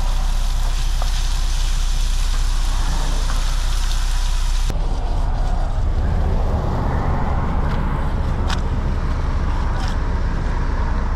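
Chicken sizzling in a wok on an electric hob, over a low rumble of passing road traffic. About five seconds in the sizzle cuts off sharply, leaving the low road rumble with a few light clicks.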